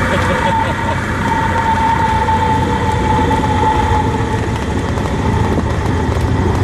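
Cessna R172K Hawk XP's six-cylinder Continental engine and propeller heard from inside the cabin, a steady drone. A thin, slightly wavering high tone sounds over it for the first four seconds, then fades.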